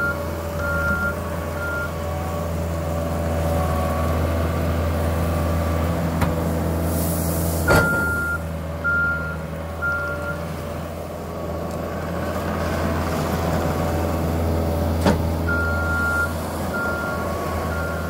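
Gehl RT215 compact track loader's diesel engine running steadily under load, with its backup alarm beeping in three short series, each one long beep followed by two short ones. A few sharp clanks from the bucket and tracks are heard, the loudest about eight seconds in.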